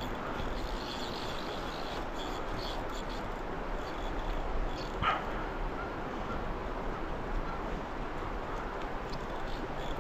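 Steady rush of the river current flowing past, with one brief high call that falls in pitch about halfway through.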